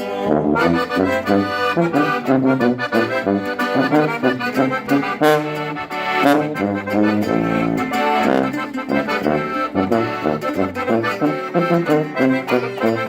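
Instrumental break of a norteño-con-tuba song: accordion playing quick melodic runs over a tuba bass line.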